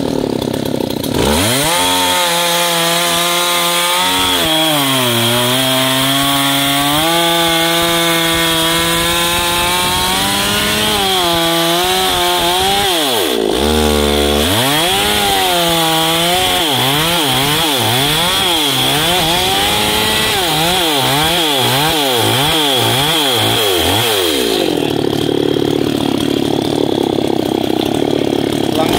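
Two-stroke gasoline chainsaw cutting through a coconut palm trunk, its engine pitch rising and sagging as the chain bites into the wood. About halfway through it drops almost to idle for a moment, then revs up and down again and again before settling on a steady high rev near the end.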